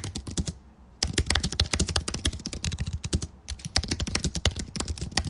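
Fast typing on a computer keyboard: a rapid run of key clicks, broken by two short pauses, one just before a second in and one a little past three seconds in.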